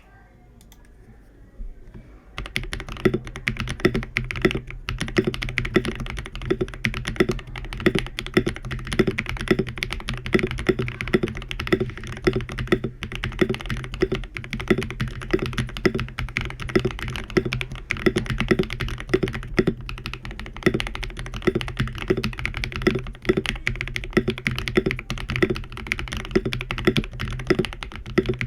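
Akko 3098B mechanical keyboard with KTT Strawberry linear switches being typed on steadily, a fast, dense stream of keystroke clacks. The typing starts about two seconds in, after a quiet moment.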